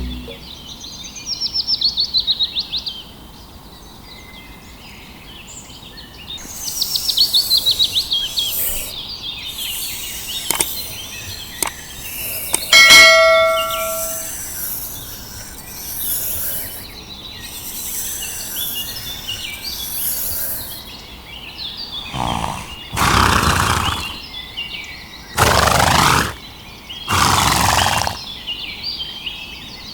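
Birds chirping in trills, with a single bell-like ding about halfway through, then a few loud noisy bursts near the end.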